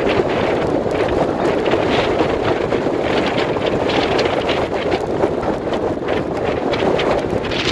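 Strong wind, gusting over 30 knots, buffeting the microphone on a ship's deck, with a steady rush of rough sea along the hull. Short flares of gusting come several times.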